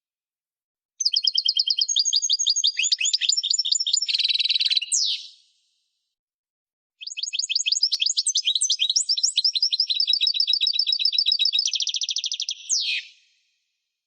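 A songbird singing two long phrases of rapid, repeated trilled notes, high-pitched, each ending in a quick falling sweep, with a pause of about two seconds of complete silence between them.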